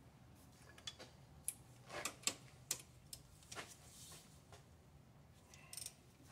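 Metal hand tools clicking and clanking against metal: a handful of sharp, irregular clicks over a couple of seconds, then a brief rattle near the end.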